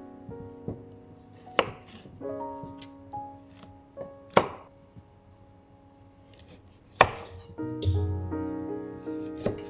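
Kitchen knife chopping vegetables on a cutting board: several sharp chops, the loudest about every two and a half seconds. Background piano music plays under it.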